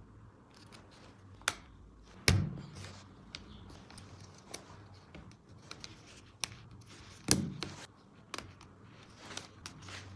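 Plastic toy track pieces being handled: scattered light clicks and taps, with two louder knocks, one about two seconds in and one about seven seconds in.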